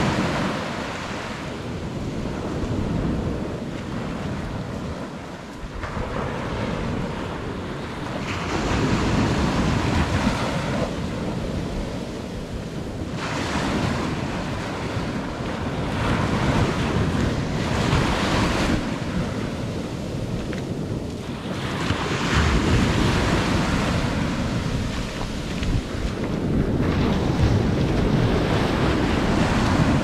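Ocean surf breaking on a beach, the wash of the waves swelling and easing every few seconds, with wind buffeting the microphone.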